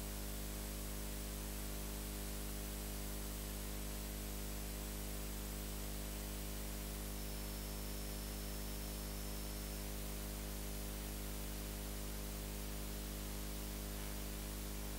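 Steady electrical hum with an even hiss over it, and a faint high whine for a few seconds in the middle.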